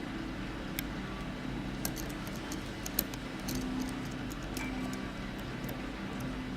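Light metallic clicks and scrapes from a dimple pick bounced across the security pins ('dancing on the pins') inside an ABUS euro cylinder dimple lock, irregular and bunched in the middle, over a steady low hum.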